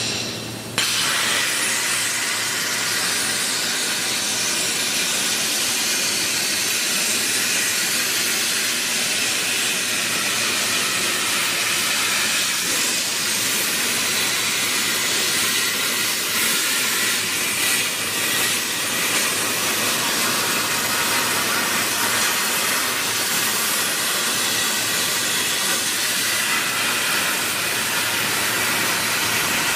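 Plasma torch of a portable CNC plasma cutting machine cutting metal plate: the arc strikes about a second in, then a loud, steady hiss.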